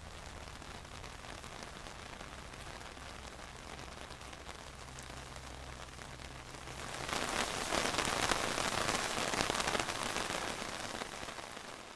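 Rain falling steadily on surfaces, a dense patter of drops. About seven seconds in it swells into a much heavier downpour.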